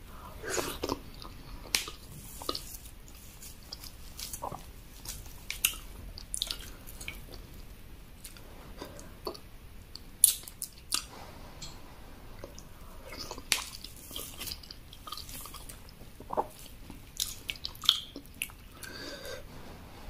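Close-miked chewing of eba (cassava garri) dipped in egusi soup: irregular wet smacks and clicks of the mouth, the sharpest about halfway through.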